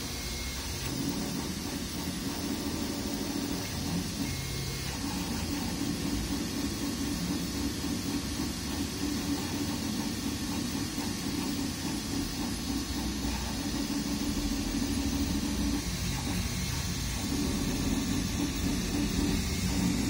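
Large-format 3D printer running a print: a steady whir of stepper motors and cooling fans, its tone shifting and briefly dropping out every few seconds as the print head changes moves.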